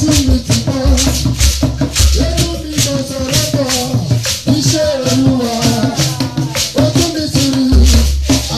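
A man singing a praise song into an amplified microphone, his melody rising and falling over a steady rattling percussion beat and a heavy low boom from the sound system.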